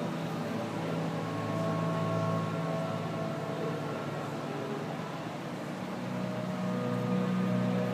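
Aquarium hall ambience: a steady hum under slow, held notes that shift in pitch every few seconds.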